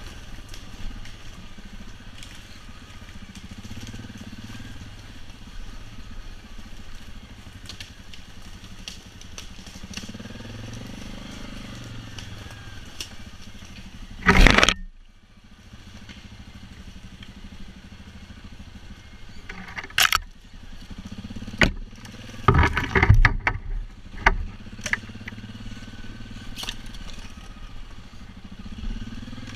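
ATV engine running at low revs as the quad picks its way down a forest slope, its hum slowly swelling and fading. A loud knock about halfway through and a cluster of sharp clattering knocks later on come from the machine jolting over rough ground and brushing through branches.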